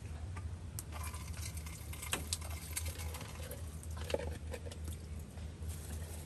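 Dishes washed by hand under a hose: water running and splashing, a sponge scrubbing, and scattered clinks and clatters of metal bowls, over a steady low hum.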